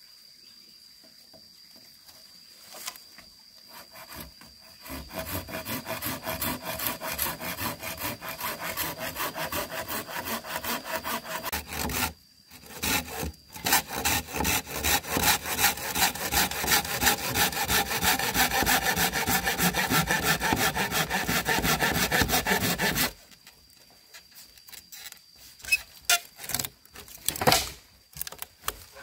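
Hand saw cutting wood with steady back-and-forth strokes, starting a few seconds in, pausing briefly near the middle, and stopping about three quarters of the way through, followed by a few sharp knocks.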